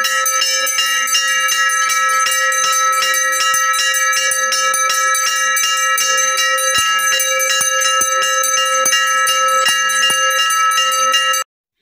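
Temple bell rung rapidly and continuously, struck several times a second so that the ringing overlaps into one steady peal; it cuts off suddenly near the end.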